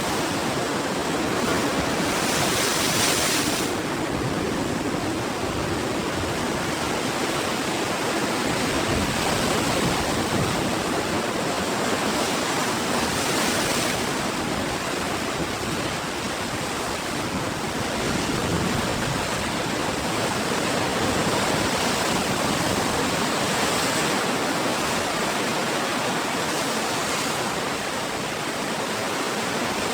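Ocean surf: a continuous wash of breaking waves, with the hiss of a wave rushing in swelling about two seconds in and again around thirteen seconds.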